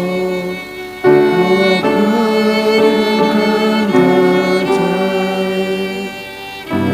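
Slow instrumental music: held, sustained notes and chords that change every second or so, with a brief lull about a second in and another near the end.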